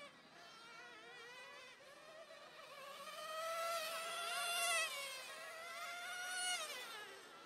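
1/10-scale RC touring cars running a lap, their motors giving a high buzzing whine whose pitch rises and falls as the cars accelerate and brake. It is loudest about four to five seconds in, as one car passes close and its pitch drops away.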